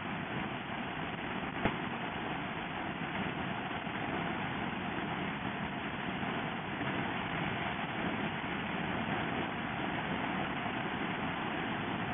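Steady rush of wind and road noise from a Honda NC700X motorcycle at highway speed, the wind beating on the rider's camera microphone, with one short click about a second and a half in.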